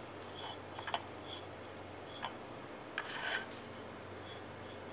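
Fingers rubbing and scraping a spice paste of mixed spices, turmeric, lemon and garlic around a ceramic plate, with a longer rasping scrape about three seconds in. Light, regular ticks about twice a second run underneath.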